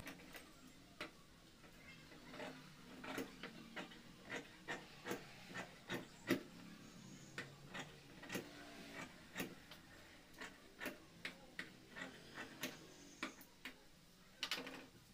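Large tailor's shears cutting through cloth: a run of faint, sharp snips, about one to two a second, with a louder clack near the end as the shears are laid down on the table.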